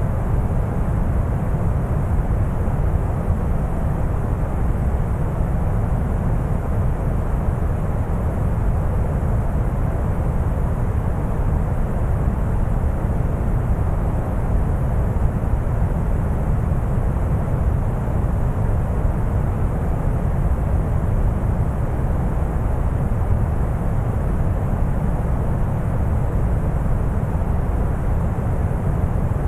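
Deep brown noise: a steady, unchanging rumbling hiss, weighted heavily toward the low end with only faint high hiss.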